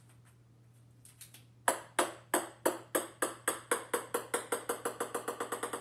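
A small ball bouncing on a wooden floor. The bounces come quicker and fainter as it settles, each with a short ringing ping.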